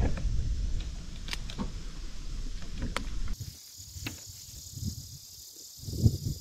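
Low rumble of handling noise with a few sharp clicks. About three seconds in it changes to a quieter steady high-pitched drone of insects.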